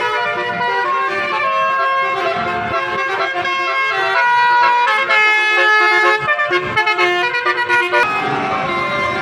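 A car's Basuri telolet horn playing a tune: loud chords of several horn tones at once, stepping up and down in pitch note by note. About six seconds in, the notes turn short and clipped for a couple of seconds.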